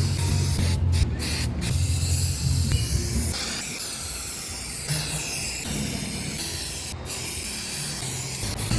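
Aerosol spray paint can hissing as paint is sprayed on, with a few short breaks where the nozzle is released, about a second in and again near the end.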